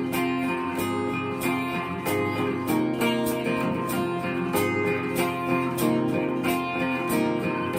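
Acoustic guitar strummed steadily, about two strums a second, with no singing over it.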